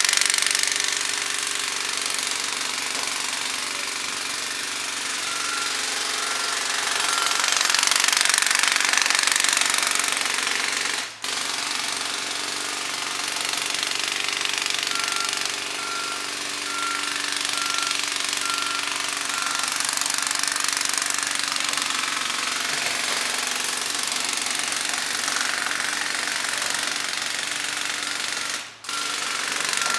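A jackhammer hammering pavement in a continuous rapid rattle, stopping for a moment about a third of the way in and again near the end. Under it a heavy-equipment engine runs. In stretches a reversing alarm beeps in an even on-off pattern.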